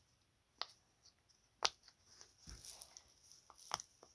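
Silicone pop-it fidget toy being pressed by hand: three sharp pops spread over a few seconds, with soft rubbing of fingers on the silicone between them.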